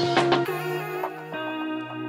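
Background music: held chords with a few light ticks, the chord changing about two-thirds of the way through.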